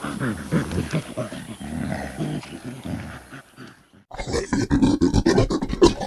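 Gorilla vocalizing with low grunting calls that fade out a little before four seconds in. After a brief silence, a quick run of short, rough gorilla sounds begins.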